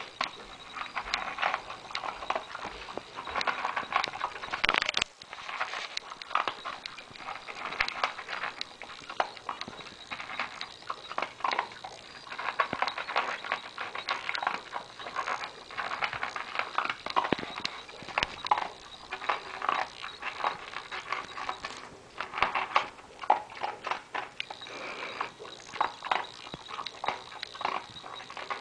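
A Corgi wolfing down dry kibble from a bowl: a fast, continuous stream of crunching and chomping, with kibble clicking against the bowl.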